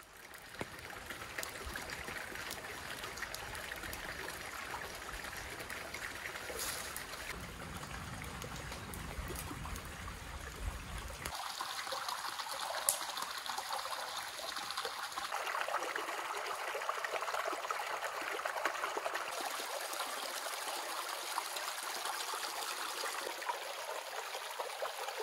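A shallow rocky creek trickling and babbling over stones, a steady rush of water. A low rumble under it in the first part stops about eleven seconds in.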